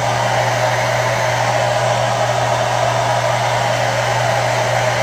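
Handheld hair dryer blowing at full, steady speed: a constant airy rush over a low motor hum, cutting off abruptly at the end.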